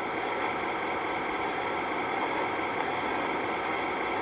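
Steady background noise: an even hiss with a faint low hum, unchanging throughout.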